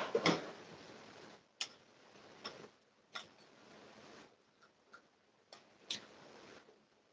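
Light, irregular clicks and taps, about eight over several seconds, such as fingers tapping on a phone, over a faint steady hiss. A louder clatter comes right at the start.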